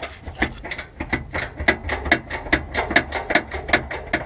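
Hand ratchet wrench clicking quickly and evenly, about five or six clicks a second, as a bolt is run off.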